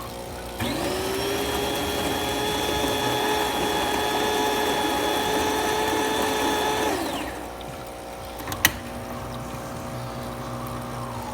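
Built-in grinder of a DeLonghi Magnifica bean-to-cup espresso machine running for about six seconds. It spins up to a steady whine, then winds down. A single sharp mechanical click follows.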